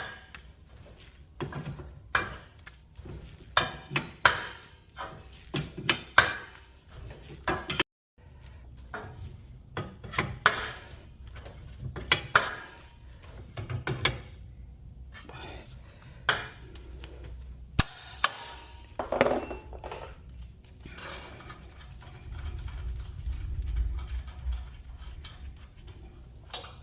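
Irregular sharp metallic clinks and clanks from steel winding bars and garage door torsion spring hardware being worked. A low rumble rises near the end.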